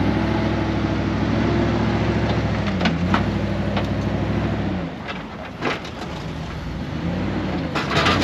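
Engine of a lifted first-generation Jeep Grand Cherokee working under load as it crawls up a steep rock ledge, its pitch dipping and rising with the throttle. The engine note drops away for a moment about five seconds in, then builds again, with a few sharp clicks and crunches along the way.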